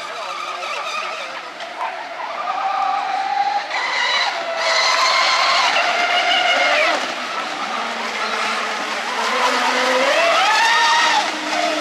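Radio-controlled model speedboats racing at high revs, their motors whining loudly and rising and falling in pitch as they throttle and pass. The sound grows loud about four seconds in, and the pitch climbs sharply near the end.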